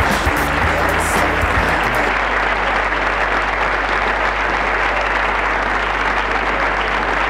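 Background music with a stepped bass line for about the first two seconds, then steady applause.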